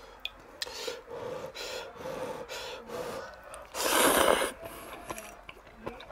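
A person blows several short breaths on lifted hot ramen noodles, then loudly slurps them in about four seconds in.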